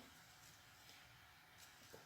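Near silence: faint room tone between spoken sentences.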